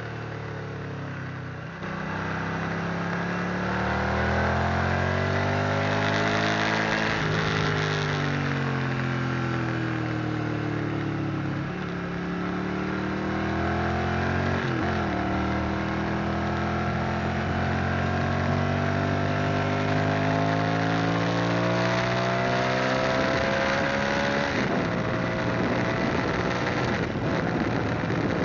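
Motorcycle engine heard from onboard on a circuit lap. Its pitch climbs and falls again and again as the bike accelerates, changes gear and slows for corners, with steady wind rush on the microphone.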